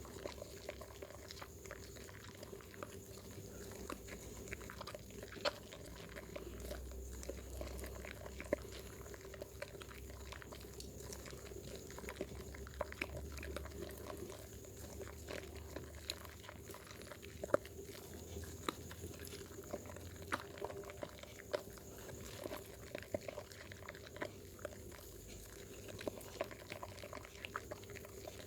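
Wet bar soap being lathered in the hands, giving a continuous run of small squelching, sticky clicks.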